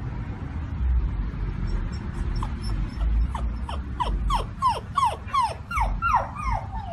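Australian Shepherd puppy whining, a rapid run of short high whines that each fall in pitch, about three a second, starting a couple of seconds in.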